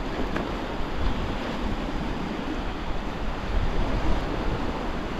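Sea surf and swell washing steadily along a rocky shore, with wind rumbling on the microphone.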